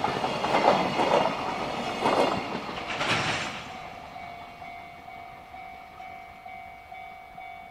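Freight train of empty container flatcars clattering over the rail joints, the sound dying away as the last wagon passes about three and a half seconds in. After that the level crossing's electronic warning bell keeps ringing in a steady repeating tone.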